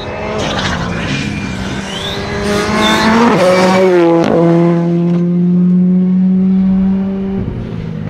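A Ford Fiesta R5 rally car's turbocharged four-cylinder engine at full effort as the car passes. The engine pitch climbs, steps down twice around the middle with a few sharp cracks, holds a loud steady note, then drops and fades as the car pulls away near the end.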